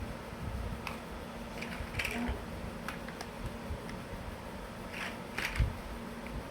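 Plastic toy building blocks being handled and pressed together: scattered light clicks at irregular intervals, the loudest about five and a half seconds in.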